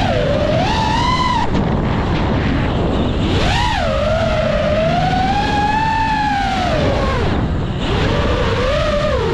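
FPV quadcopter's brushless motors and propellers whining, the pitch sliding up and down as the throttle changes and dropping away briefly twice. Heavy wind rush on the onboard camera's microphone runs under it.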